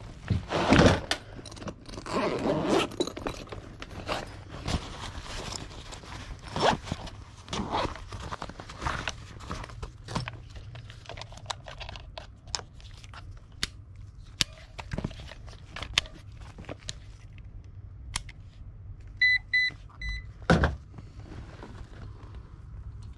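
Tools being handled in a tool bag and a clamp meter with its test leads being picked up: rustling with scattered clicks and knocks. About 19 seconds in the meter gives three short electronic beeps, followed by a single thump as it is set down on plywood.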